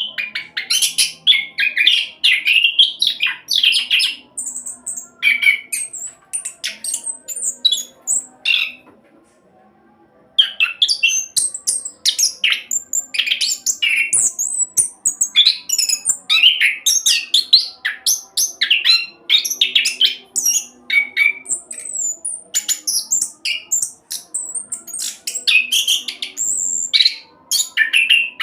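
Chestnut-capped thrush (anis kembang) singing a fast, unbroken rolling song of rapid high whistles and chirps. It breaks off for about a second near the middle, then resumes.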